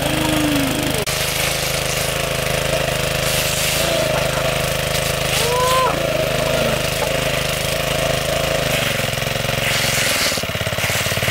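Small engine-driven water pump running steadily under load, drawing muddy water up its suction hose and jetting it out.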